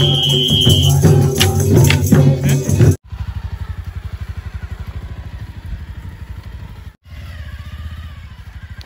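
Village stick-dance music: barrel drums beating, with a steady high tone held through the first second. About three seconds in it cuts to a motorcycle engine running with an even low putter as the bike rides off.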